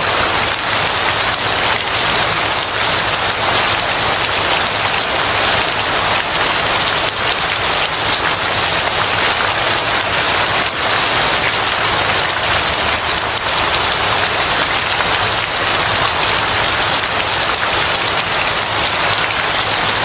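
Steady rain falling: an even, dense hiss of drops on a surface.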